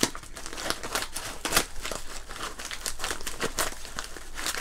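Scissors cutting through a padded paper mailing envelope, the paper crinkling and crackling irregularly as it is cut and handled, with the loudest crackle about a second and a half in.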